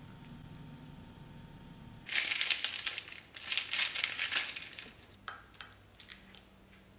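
Crisp toasted bread being broken apart by hand: a loud crackling crunch in two bursts starting about two seconds in, followed by a few small crackles.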